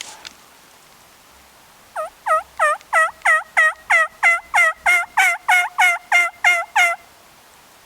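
A run of about sixteen turkey yelps, roughly three a second for about five seconds, each note dipping and rising in pitch.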